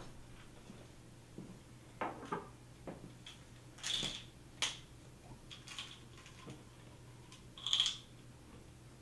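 Faint rustling and clicking as a wallet is handled, in a dozen short, scattered sounds; the loudest come about four seconds and eight seconds in. A low steady hum lies underneath.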